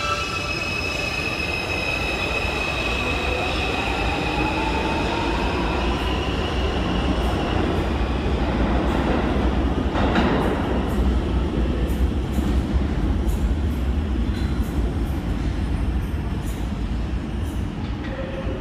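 New York City subway train pulling out of an underground station: a steady high whine from the traction motors and wheels, with a tone rising in pitch as it speeds up, over a low rumble. In the second half another train is coming up the tunnel, a continuous rumble with scattered clicks of wheels over the rail joints.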